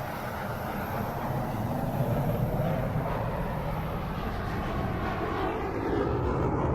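Steady low rumble of an airliner in flight, used as a sound effect, with no distinct events.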